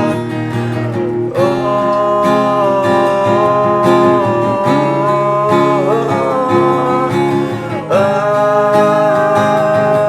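Acoustic guitar strummed in steady chords, with a sustained melody line of long held notes that slides to a new pitch a few times.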